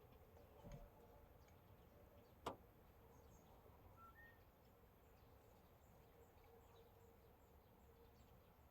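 Near silence: faint outdoor ambience with scattered short high chirps from insects or birds. There is a soft low thud just under a second in and a single sharp click about two and a half seconds in.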